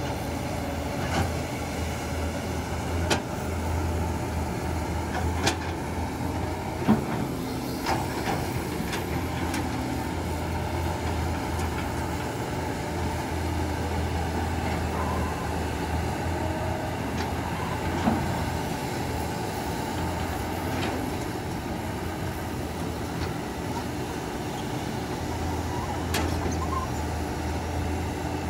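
Komatsu D31A bulldozer's diesel engine running with a steady low drone that swells and eases under load, with scattered sharp metallic knocks.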